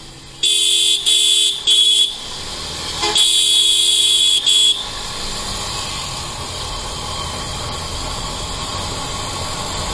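A vehicle horn honking with a two-note pitch: three short blasts, then a pause and one long and one short blast. After that, steady road noise from the motorcycle ride.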